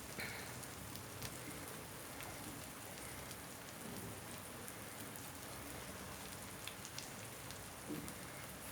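Eggs frying in hot oil in a pan, a steady sizzle with fine crackling and popping throughout.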